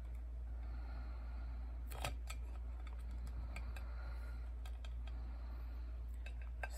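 Light clicks and taps of small plastic dolls being picked up and set down on a metal tray, with one louder knock about two seconds in and a few quick clicks near the end.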